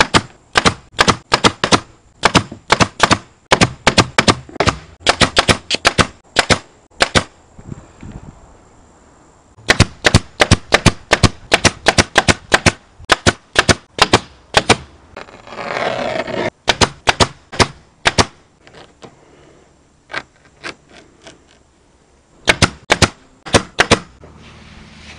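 Upholstery staple gun firing staples through vinyl into a wooden console frame, in quick runs of two or three sharp shots with short pauses between. A short rushing sound comes about two-thirds of the way through.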